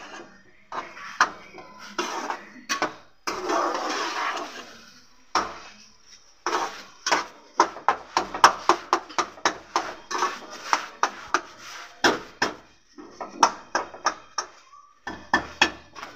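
A metal spatula stirring and mashing thick cooked eggplant in a metal pot: scraping through the mash, then a quick run of clinks and knocks against the pot, about three a second.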